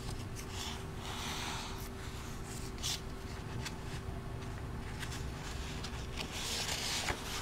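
Pages of a handmade journal being turned and handled by hand: soft paper rustles and rubs, the fullest one near the end. A faint steady hum runs underneath.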